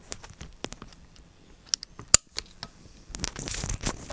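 Handling noise from the camera being picked up and carried: scattered small clicks and knocks, one sharp click about two seconds in, then rustling near the end.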